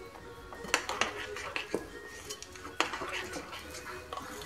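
Yellow plastic scoop knocking against a glass mixing bowl as flour is added to dough: a handful of sharp clinks spread over a few seconds.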